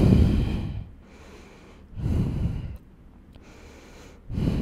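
A woman breathing heavily from exertion during a vigorous yoga flow: three loud breaths about two seconds apart, the last starting near the end.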